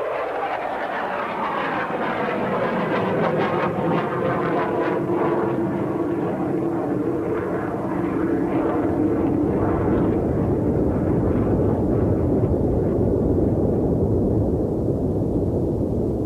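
Jet noise of a Rockwell B-1B swing-wing bomber flying past. The tone slowly falls, and after about ten seconds the hissing upper part fades, leaving a low rumble.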